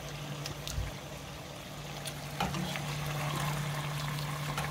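Chicken in palm-oil sauce simmering and sizzling in a pot on the stove, with a steady low hum beneath and a few light clicks of a metal slotted spoon against the pot.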